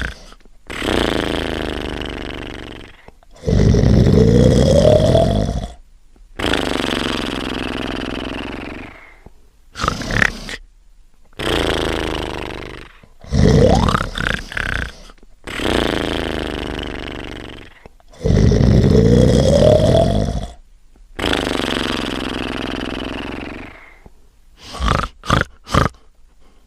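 Exaggerated cartoon snoring: loud, rasping snores about two to three seconds long follow one another with short pauses, some with a rising whistle in them. A quick run of short snorts comes near the end.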